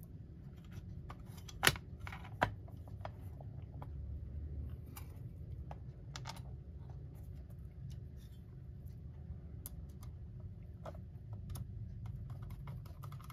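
Small clicks, taps and scrapes of a clock's bottom base plate being handled and fitted back on, with its wire tucked in. There are two sharper clicks about a second and a half in and just under a second later.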